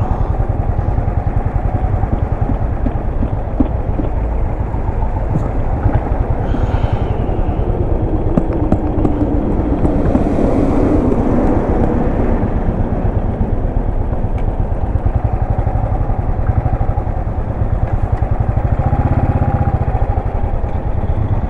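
Royal Enfield Thunderbird 350X motorcycle's single-cylinder engine running steadily while being ridden. The sound swells briefly about ten seconds in.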